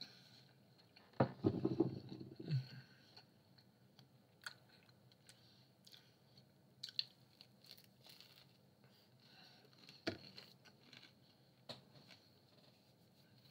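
Close-miked mouth sounds of a person biting into and chewing a slice of rising-crust Hawaiian pizza with a chewy crust. There is a louder stretch of biting and chewing about a second in, then quieter, scattered wet chewing clicks.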